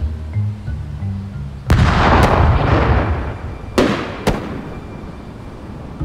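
A cartoon bang sound effect: a sudden loud burst with a rushing, fading tail, then three sharp cracks, over a plucked bass music line.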